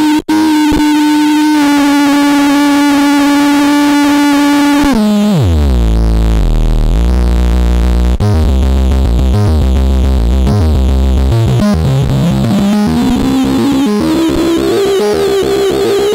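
Plankton Electronics Ants! synthesizer played through the SPICE distortion and saturation unit: a held, buzzy tone that steps slightly lower, then about five seconds in dives steeply into a deep, dense low rumble and slowly climbs in pitch again over the last few seconds. A brief dropout just after the start.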